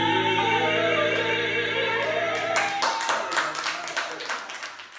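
A blues band of clarinet, electric guitar and voice holds the final chord of the song, which stops a little past halfway through. A small audience then claps, fading out at the end.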